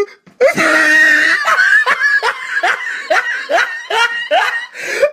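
A person laughing: after a brief silence, one drawn-out note, then a steady run of short "ha" bursts, about three a second, which cuts off abruptly at the end.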